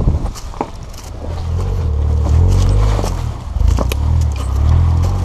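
Suzuki Jimny JB23's small turbocharged three-cylinder engine running at low speed under load as the vehicle crawls over loose rocks close by, getting louder from about a second in. Tyres crunch on gravel and stones click and knock, the sharpest knock a little before the end.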